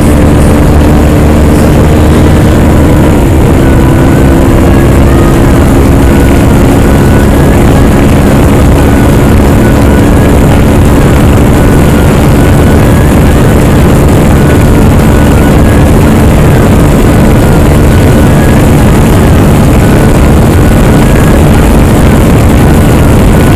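Hero XPulse 200's single-cylinder engine running loud and steady at cruising speed through a very loud exhaust, with the engine note holding an even pitch. Wind rushes over the microphone.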